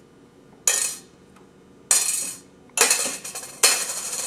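Small metal objects (paper clips, bottle caps and pennies) dropped one at a time into an empty one-pound metal coffee can. Four sharp clinks come about a second apart, each ringing briefly in the can.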